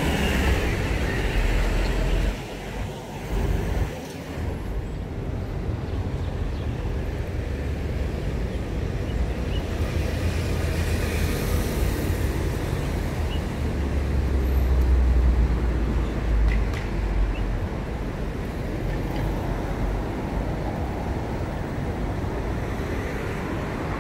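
City street traffic: a steady hum of cars with a low rumble that swells as vehicles go by, loudest about fifteen seconds in.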